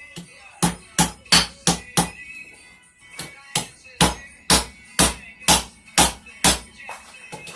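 Hand hammer striking a hot railroad spike on an anvil, flattening it, with a ringing clang on each blow. Quick blows, a pause about two seconds in, then a steady rhythm of about two blows a second.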